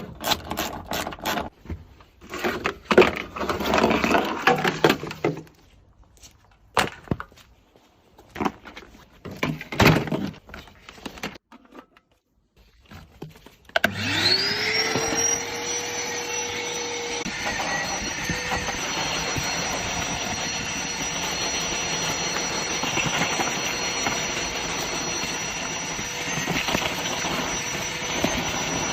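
Irregular knocks, scraping and clattering, then about halfway through an electric motor spins up with a rising whine and runs steadily with a high whine on top, like a cleaning machine switched on.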